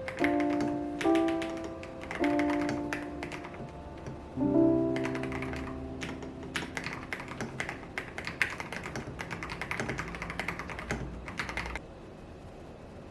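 Fast typing on a YUNZII X75 Pro mechanical keyboard with Kaith Jellyfish switches, a dense run of key clicks that cuts off abruptly near the end. Background piano music with sustained chords plays over the first half.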